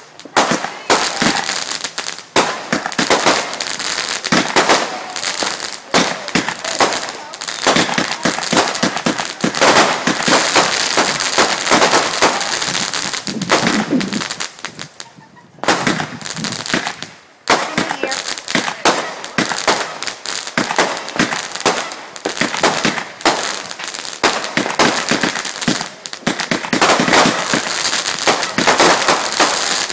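Backyard consumer fireworks going off in rapid succession: a dense, continuous run of bangs and crackling, easing off briefly twice about halfway through before picking up again.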